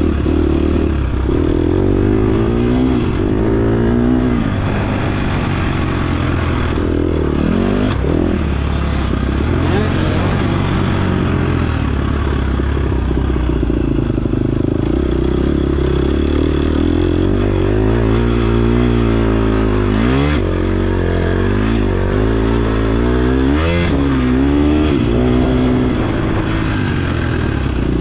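KTM 250 XC-F dirt bike's single-cylinder four-stroke engine revving hard around a motocross track. The pitch repeatedly climbs through the gears and drops sharply off the throttle into corners, most clearly about 20 and 24 seconds in.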